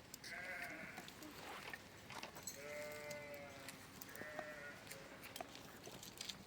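Sheep bleating: a few separate wavering calls, the longest lasting about a second.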